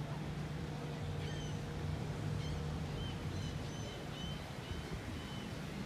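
A steady low hum from the turning cruise ship, with short high bird calls on top, a run of them coming about two to four seconds in.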